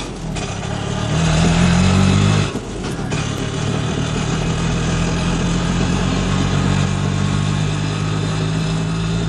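Small three-wheeler engine sound, an auto-rickshaw's engine, running. It revs up about a second in, drops back at about two and a half seconds, then runs evenly.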